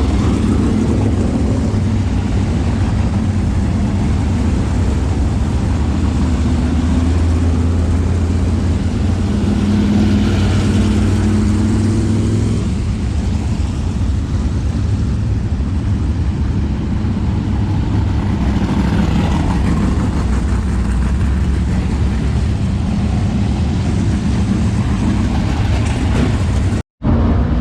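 Several race car engines running together in a steady low rumble, their pitch rising and falling a little as they rev. The sound cuts out for a split second near the end.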